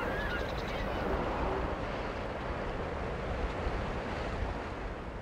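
Steady rush of wind and sea water with a low rumble, with a few short bird calls in the first second; it fades out near the end.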